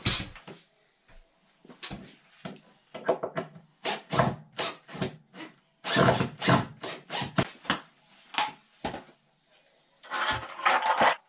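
Wooden wall boards being handled and fitted: irregular knocks, taps and scrapes of wood on wood, with a busier cluster near the end.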